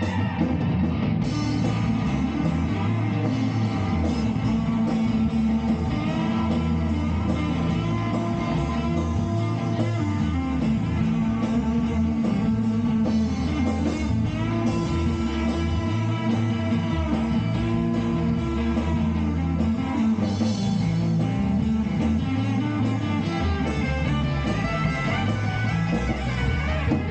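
A band playing an instrumental psychedelic-rock jam, with electric guitar leading over a moving bass line.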